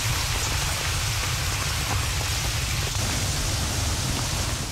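Storm sound effect of heavy, steady rain with a deep continuous rumble beneath it, standing for a typhoon's rain and wind.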